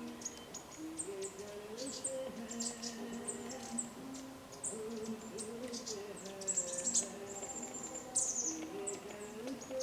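Many small birds chirping and trilling in quick, high-pitched notes, over a soft, slow melody of held notes.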